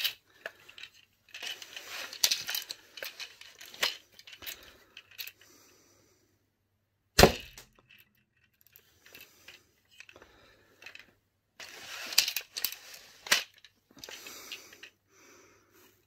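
Rustling and clicking of a launcher being handled and loaded, then a single sharp shot about seven seconds in as a projectile is fired through a chronograph, followed by more rustling and clicks.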